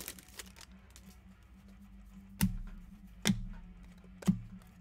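Cards being handled and tapped down on a tabletop: light card-handling ticks, then four sharp knocks from about halfway through, each with a short low thud, the last one the loudest. A low steady hum runs underneath.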